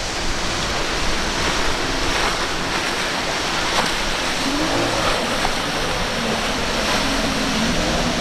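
Loud rushing surf and churning water, with a faint outboard engine note wavering underneath.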